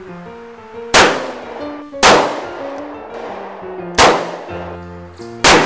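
Four handgun shots, the gaps between them about one, two and one and a half seconds, each with a long ringing decay, over ragtime piano music.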